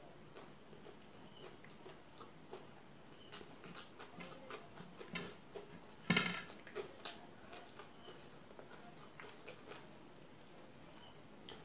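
Close-up eating sounds: mouth smacking and chewing with small wet clicks as fingers pick food from a plate. One louder, sharp smack about six seconds in.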